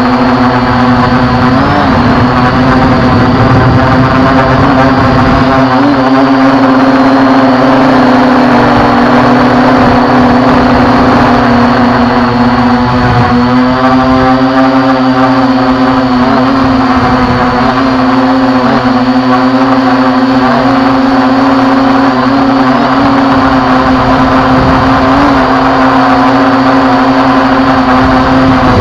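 Bug GPS quadcopter drone's motors and propellers whining in flight, a steady pitched hum with higher overtones that wavers briefly now and then as the drone adjusts its hover.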